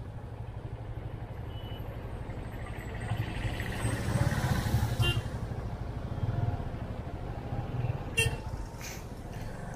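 Motorcycle engine running at low speed in slow town traffic, with the hum of surrounding vehicles. The noise swells about four to five seconds in, and there is a short sharp sound near the end.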